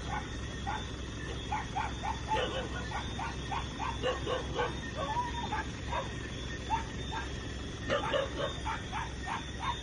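Repeated short animal calls, coming every half second or so throughout, over a steady low hum.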